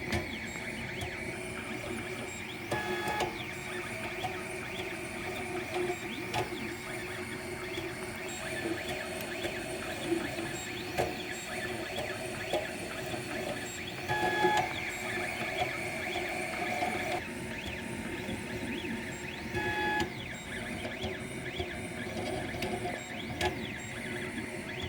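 3D printer running a print: its stepper motors whine in steady tones, with the pitch changing every few seconds as the print head switches between moves.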